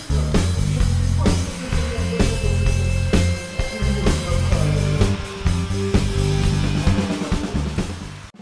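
Background music with a steady drum beat over bass, fading out near the end.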